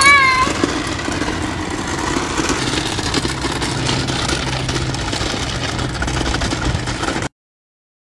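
A toy Henry vacuum cleaner rattling and scraping over rough, wet tarmac as it is dragged along by its hose, with a low hum joining about two and a half seconds in. A brief high squeal opens it, and the sound cuts off abruptly near the end.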